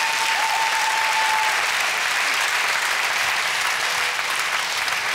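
Studio audience applauding steadily, a dense even clatter of many hands. One long held tone rises above it for the first second and a half.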